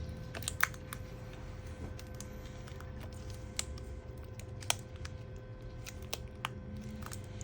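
Scattered light clicks and taps of small tools and parts being handled inside an opened laptop during a battery replacement, seven or so sharp ticks spread over several seconds, over a steady faint hum.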